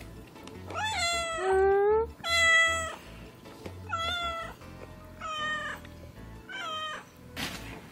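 Domestic cat meowing five times in a row, the first call the longest, begging for a treat that is being held back.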